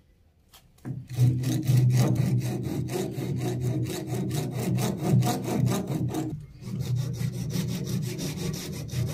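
A bare hacksaw blade held in the hand sawing through the wooden lip on the edge of a door, in fast back-and-forth strokes that begin about a second in, with a short break about two-thirds of the way through.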